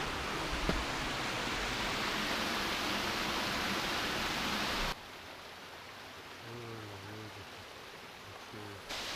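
Stream water rushing over rocks and small cascades, a steady hiss. About five seconds in it cuts abruptly to a quieter, more distant water sound, and it jumps back to the louder rush just before the end.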